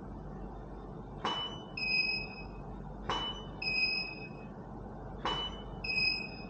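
Camera and studio strobe firing three times, about two seconds apart. Each click is followed by a short electronic beep, the strobe's ready signal once it has recycled.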